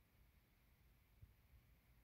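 Near silence: room tone with faint low rumbling.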